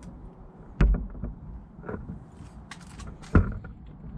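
Two sharp knocks about two and a half seconds apart, the second about as loud as the first, with lighter clicks and a brief rattle between them: objects being handled and set down.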